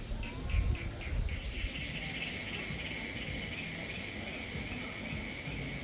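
Crickets and other insects chirring steadily in a dense high chorus, preceded by a run of quick repeated chirps in the first second or so. A brief low rumble comes about half a second in.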